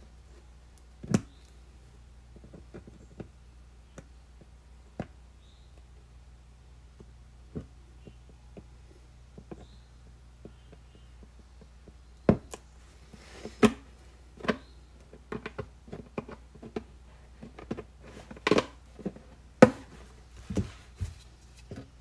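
Hollow knocks and clicks of a plastic laundry jug being handled while a hole is cut in it with a hot knife, over a faint low hum. One sharp knock about a second in; the knocks come much more often in the second half.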